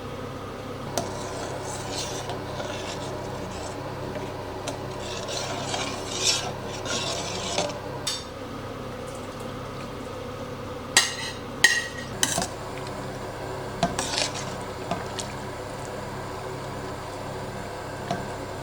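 A utensil stirring and scraping in a metal cooking pot of stock, with several sharp clinks against the pot about two-thirds of the way through.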